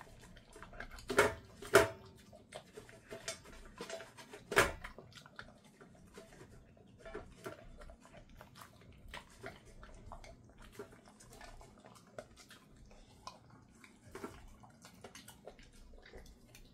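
A dog licking out its emptied stainless steel food bowl: wet licking and lapping, with sharp clinks of tongue and muzzle against the metal. The three loudest clinks fall in the first five seconds; after that the licks are softer and scattered.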